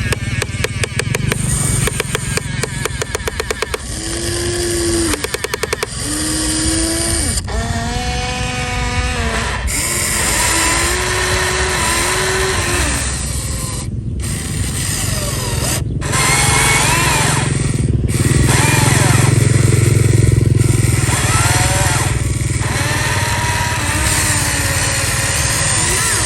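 Radio-controlled model construction machines working: small electric motors and gears whine and change pitch as they move. A fast even ticking stops about four seconds in.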